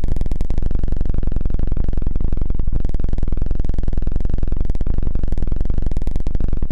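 Continuous close-up rustling and scratching right on the microphone: a dense, fast, even crackle that stays at one level and stops abruptly near the end.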